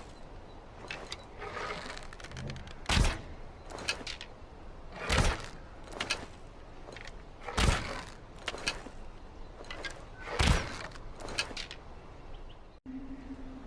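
Longbow shooting: four sharp thumps of the released string, about two and a half seconds apart, with lighter clicks between. A steady low hum starts near the end.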